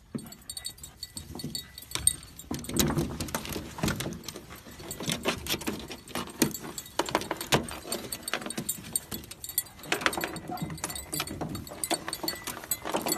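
Irregular clicks, jingles and rustling as beagles move about and nose a dead rabbit in a pickup bed, their collars jingling.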